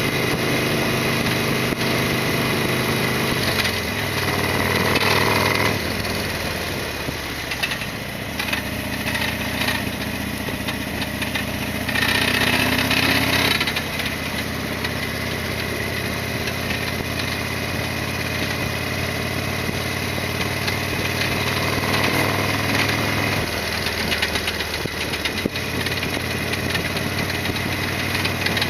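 Harley-Davidson Sportster XL1200R's V-twin engine running, its note shifting several times, with louder spells about four and twelve seconds in.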